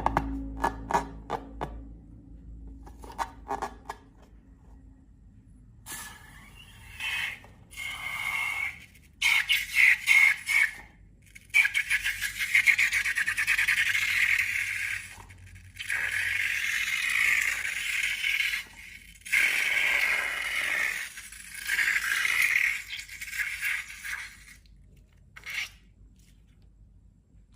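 A series of scraping strokes, each one to three seconds long with short pauses between, after a few sharp clicks at the start; part of hands-on slime making.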